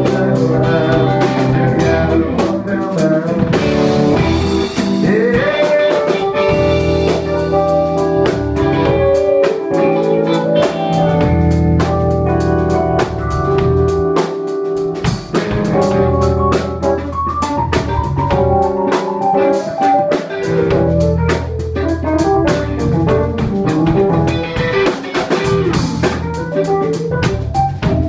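Rock band playing an instrumental passage on drum kit, electric guitar and keyboard, with no singing, in a steady blues-rock groove.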